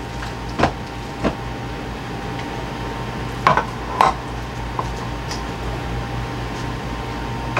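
Kitchenware knocks and clinks as a metal muffin tin and a mixing bowl are handled and set down on the stovetop and counter: a few sharp knocks, the loudest two about three and a half and four seconds in, over a steady background hum.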